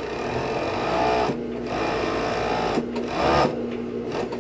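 Siruba industrial overlock (serger) machine stitching fabric in spurts, speeding up and slowing down, loudest about three seconds in, with the motor humming steadily between runs.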